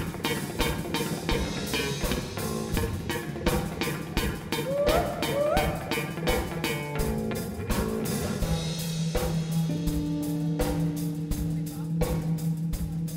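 Live blues-rock band playing an instrumental passage: electric guitars over a steady drum-kit beat. A few rising bent notes come about five seconds in, and long held notes sound under the drums from about eight seconds on.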